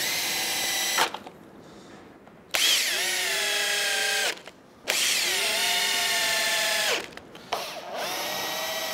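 Cordless drill driving screws into timber, run in four bursts of one to two seconds with short pauses between. In each burst the motor's whine glides down in pitch after starting and then runs steady as the screw goes in.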